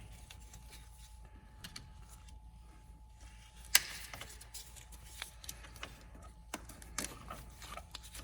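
Scattered light clicks and taps of a plastic fuse holder being handled and worked at by hand, with one sharper click a little under four seconds in.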